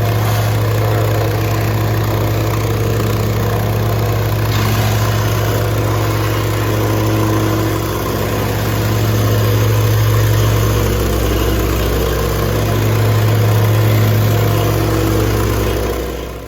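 A gasoline engine running steadily at close range, its level swelling and easing a few times, stopping abruptly at the very end.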